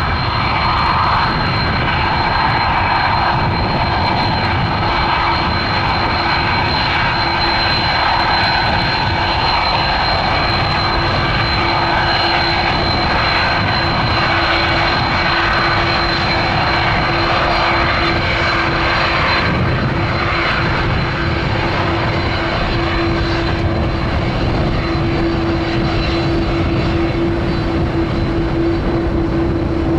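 Airbus A330-300's two turbofan engines running at taxi power as the airliner rolls slowly: a steady jet roar with a high, steady whine, and a lower hum that grows louder over the last ten seconds as the aircraft turns side-on.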